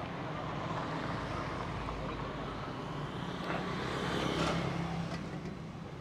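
Street traffic: a motor vehicle passes, loudest about four seconds in, over a steady background rumble of road noise.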